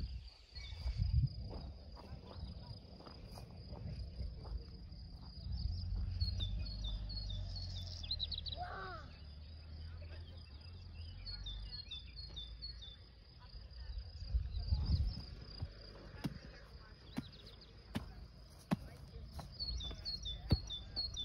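Countryside ambience: a steady high insect trill with a bird singing short phrases of repeated chirps three times, over a low wind rumble on the microphone and a few light clicks.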